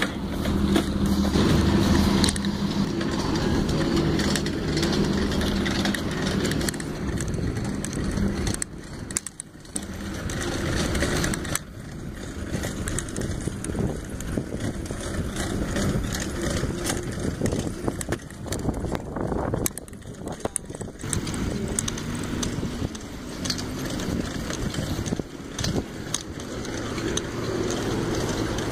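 Bicycle being ridden over a concrete sidewalk: tyre and wind noise on the microphone, with the frame rattling and clicking over the cracks in the pavement.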